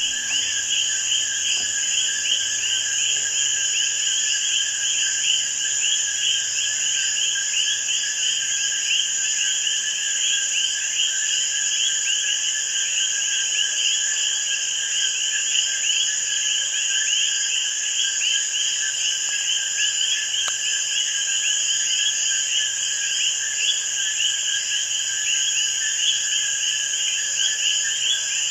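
Dense night chorus of many Puerto Rican coquí frogs calling over one another, their two-note 'co-kee' calls overlapping constantly. A steady, high-pitched insect drone runs beneath them.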